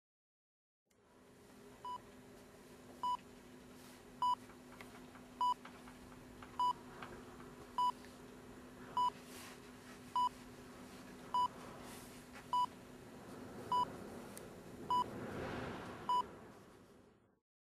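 Hospital heart monitor beeping at an even pace, a little more than a second apart, over a steady low hum.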